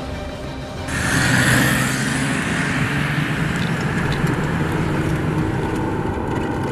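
SUV engine running under way with tyre and road noise heard from inside the cabin on a dirt track; the noise jumps up sharply about a second in and then holds steady.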